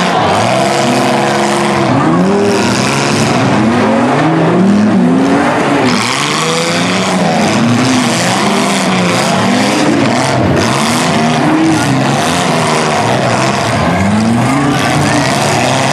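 Several mid-size demolition derby cars' engines revving up and dropping back over and over, overlapping one another as the cars reverse and ram each other.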